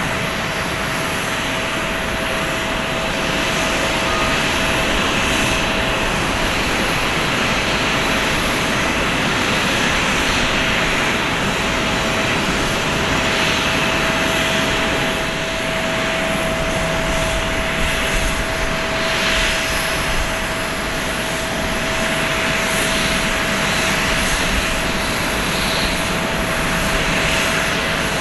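Jet engines of an Airbus A340-600, its four Rolls-Royce Trent 556 turbofans, running: a loud, steady rush of noise with a thin whine held at one pitch, swelling a little now and then.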